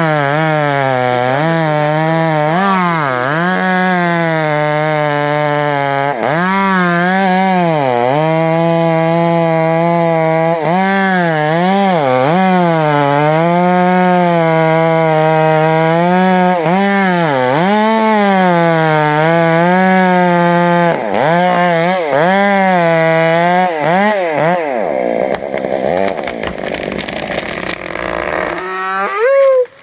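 Stihl 661 two-stroke chainsaw cutting into a large old-growth tree trunk, its engine pitch dipping under load and recovering again and again as the bar is worked through the felling cut. About 25 seconds in, the saw drops back and a crackling noise of the wood giving way follows as the tree starts to go over. A brief rev comes near the end.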